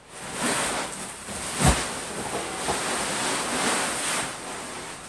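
Fabric of an inflated air lounger rustling and swishing as a person climbs onto it and settles in, with one sharp thump a little under two seconds in as her body lands on it; the rustling eases off near the end.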